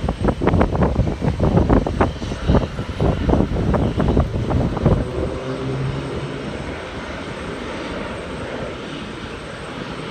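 Jet airliner engines running, mixed with gusts of wind buffeting the microphone through the first half; the buffeting dies down about halfway, leaving a steadier engine hum.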